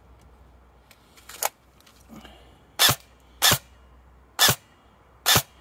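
Double Eagle M904E airsoft electric gun (AEG) firing single shots outdoors. There are five short, sharp shots at uneven intervals, the last four louder than the first.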